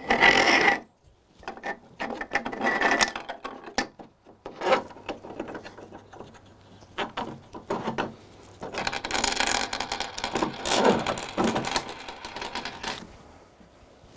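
Steel nuts and washers clinking and rattling as they are handled and fitted onto threaded steel rods, with light knocks of plywood brackets among them. The sound comes in several bursts, the longest in the second half.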